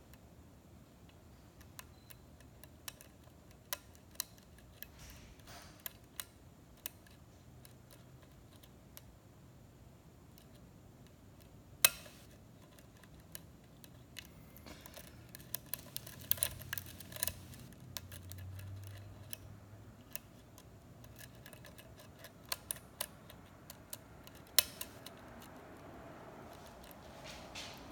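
Scattered small metallic clicks and ticks of a hook pick and tension wrench working the pins of a six-pin Schlage kik lock cylinder, with one sharper click about 12 seconds in and a cluster of clicks a few seconds later.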